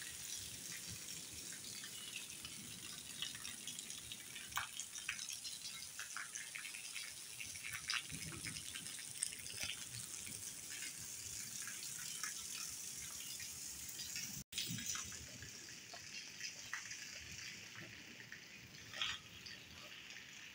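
Rain falling steadily, with scattered drops tapping close by.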